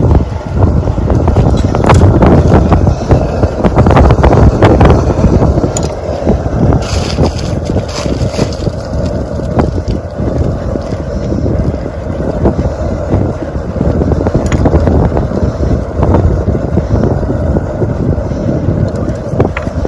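Wind buffeting the microphone: a loud, uneven rumble that rises and falls throughout, with a few sharp clicks scattered through it.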